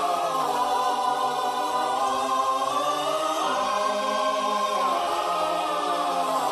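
Background music led by a wordless choir singing held chords that shift slowly in pitch.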